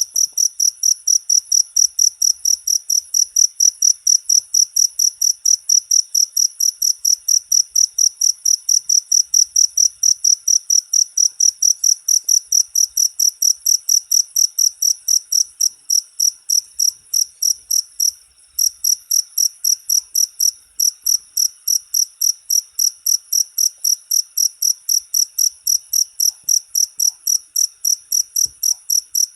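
Cricket chirping in a steady, even rhythm of about four high-pitched chirps a second, with a brief break about eighteen seconds in.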